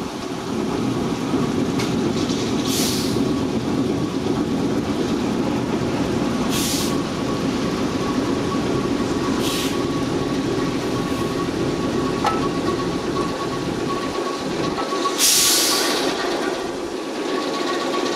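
Diesel shunting locomotive running steadily as it passes slowly beneath, with short hisses four times, the last and loudest about fifteen seconds in.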